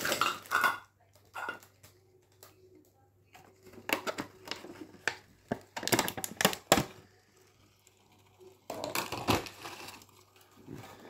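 Plastic bag and plastic containers being handled: scattered bursts of crinkling rustle with light clicks and knocks, in three or four spells separated by quiet gaps.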